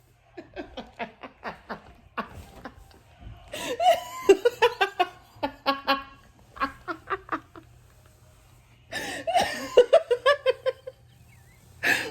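A person laughing hard in three bouts of quick, breathy laughs, the last about three-quarters of the way in.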